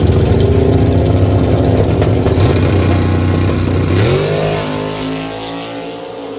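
Drag-racing car engines, led by a Fox-body Ford Mustang's, held at steady high revs on the line, then rising sharply in pitch about four seconds in as the cars launch and pull away down the strip, growing fainter.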